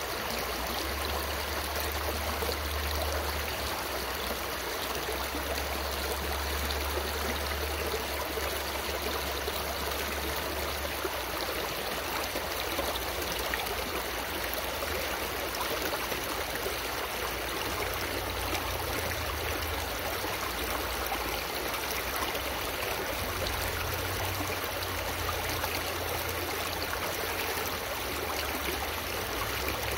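Shallow stream running over rocks, a steady rush and splash of water spilling in small cascades around a boulder.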